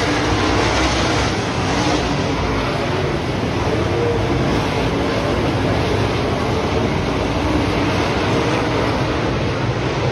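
A pack of dirt-track race cars running together at racing speed, a loud, steady din of several engines with their notes wavering up and down as the cars circle the track.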